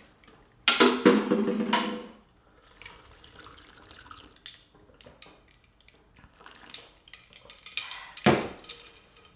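A plastic water bottle is set down with a loud hollow knock that rings briefly, then soft sounds of drinking from a glass of iced water. Near the end comes a second sharp knock as the glass is put back down.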